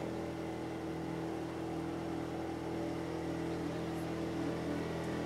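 Engine of a small Nile tourist motorboat running steadily under way, heard from aboard, a constant hum with an even hiss over it.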